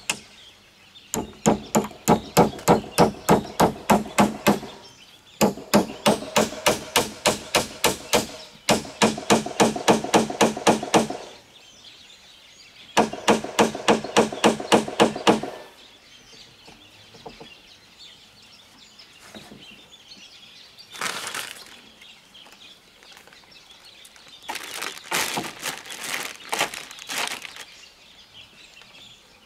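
A corrugated roofing sheet being sawn by hand in fast, even strokes of about five a second, each stroke ringing through the sheet. The sawing comes in four runs with short pauses between them. Later come a few short scraping bursts.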